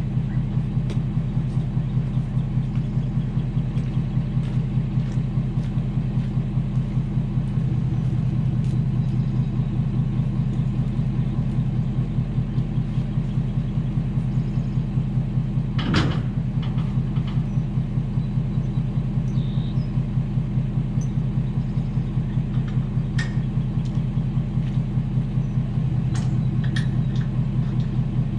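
Ford F-250 pickup truck engine running steadily, a low rumble with an even pulse. A single sharp click about halfway through.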